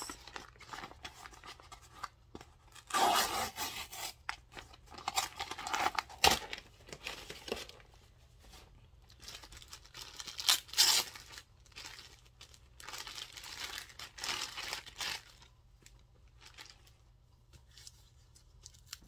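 Packaging being torn open and crinkled by hand: irregular bursts of tearing and rustling, loudest about three and eleven seconds in, dying down over the last few seconds.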